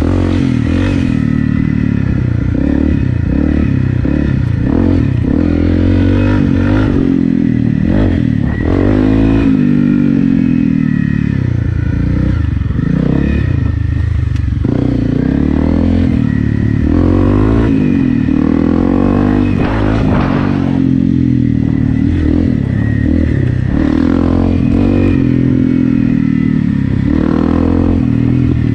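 Honda CRF250 Rally's single-cylinder four-stroke engine, fitted with an FMF PowerCore 4 exhaust, pulling the bike along an off-road trail, its revs rising and falling continuously with the throttle. Short knocks and rattles from the bike over the rough ground sit in with the engine note.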